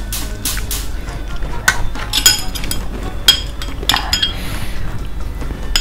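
Metal spoon and metal chopsticks against a frying pan and a plate: a few soft scraping strokes, then a run of light ringing clinks from about a second and a half in to about four seconds in.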